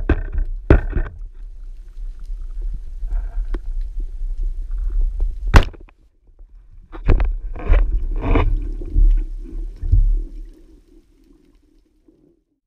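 Underwater rumble and knocks from a camera mounted on a rubber-band speargun, with one sharp crack about five and a half seconds in as the speargun fires. A run of heavier knocks and thumps follows over the next few seconds.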